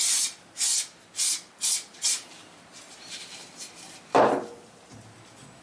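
Aerosol can of mould-release spray hissing in five short bursts, about two a second, as release agent is sprayed onto a part before casting. A little after four seconds in, one short loud knock.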